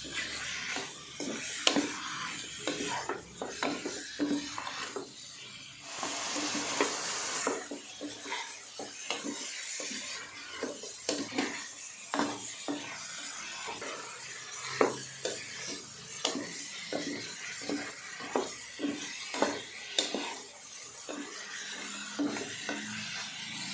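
Chicken pieces and onions sizzling in oil in a steel pot while a spatula stirs them, clicking and scraping against the pot's sides and base. The sizzle grows louder for a second or so about six seconds in.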